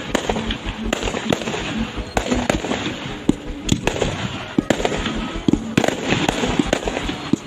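Fireworks display: aerial shells bursting in many loud bangs in quick, irregular succession.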